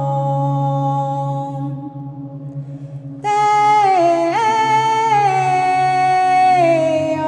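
Wordless chant-like singing over a steady low drone from a backing track. A long held note fades about a second and a half in, leaving the drone alone, then a new held note comes in about three seconds in and slides down and back up between pitches.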